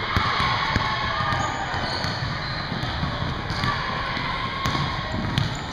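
Basketball being dribbled on a hardwood gym floor, irregular thuds with players' footsteps, in a large echoing gym.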